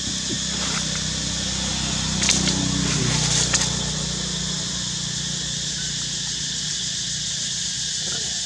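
Outdoor ambience: a steady insect drone over a low, steady hum, with a brief crackling rustle about two to four seconds in.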